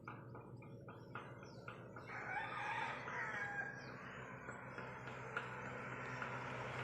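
A rooster crowing once, faintly, about two seconds in, over a steady low hum. Before it comes a quick run of ticks, about four or five a second.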